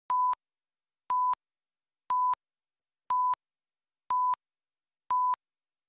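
Electronic countdown beeps on a commercial's slate: six short beeps at one steady pitch, one a second, with silence between them.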